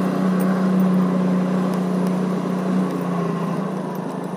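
Motor scooter engine running steadily while the scooter is ridden, easing off slightly a little after halfway through.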